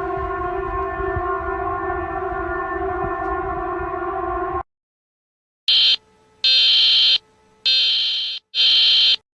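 Emergency alert tones. A steady buzzing blare of several stacked tones lasts about four and a half seconds and stops. After a gap of about a second come four loud, shrill beeps.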